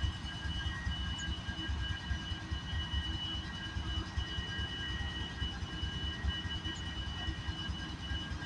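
Union Pacific diesel-electric locomotives running in a rail yard: a steady low engine rumble with a constant high-pitched whine over it.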